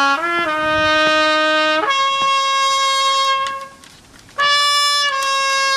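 Small dog howling in long held notes that step up and down in pitch, rising to a higher note about two seconds in; it pauses for breath about four seconds in and then howls again.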